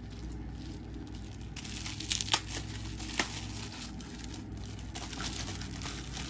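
Bubble wrap rustling and crinkling as it is pulled off a small glass oil bottle, with two sharp clicks about two and three seconds in.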